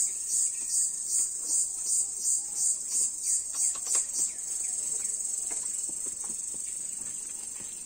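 Insects calling with a high, shrill buzz that pulses about three times a second, then runs on as a steady buzz from about four seconds in.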